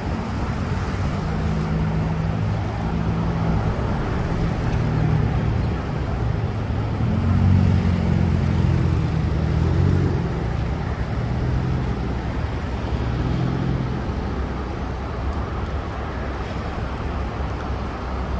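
Steady low rumble of motor traffic, with engine hum that swells and fades as vehicles pass and is loudest about seven to ten seconds in.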